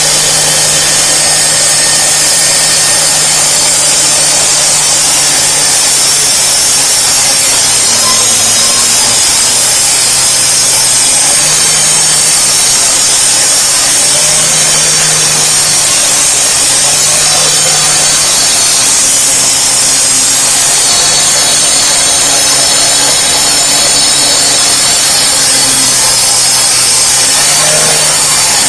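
Concrete saw cutting through a concrete slab. The motor runs loud and steady with the grinding hiss of the blade, and its pitch sags now and then as the blade takes load.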